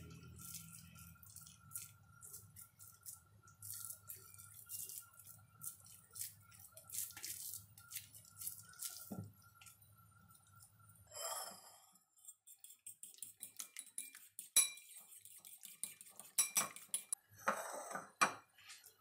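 Wet, sticky squishing and small clicks of hands pressing a soft mashed-potato and shredded-chicken mixture around a chicken drumstick bone over a steel bowl, with a faint steady hum underneath. In the last few seconds, several sharp clinks and knocks of dishes on a stone counter.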